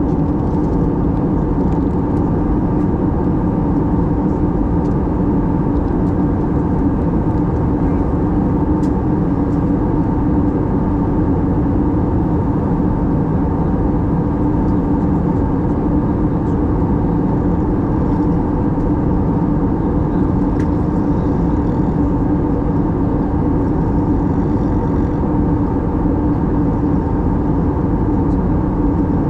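Steady cabin noise of an Airbus A320neo in flight: the even drone of the engines and the air rushing past, with a constant low hum and no change throughout.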